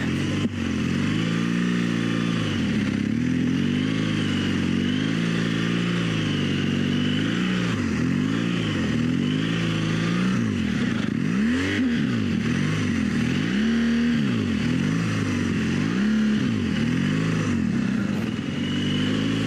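Adventure motorcycle engine pulling at low speed through deep snow. The revs are fairly even at first, then rise and fall over and over, about once a second, as the throttle is worked on and off.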